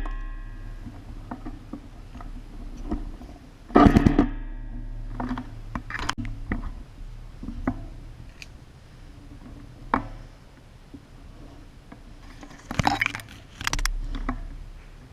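Scattered sharp knocks and clatters, some leaving a brief metallic-sounding ring, with a tight cluster about four seconds in and two more near the end, over a low steady hum.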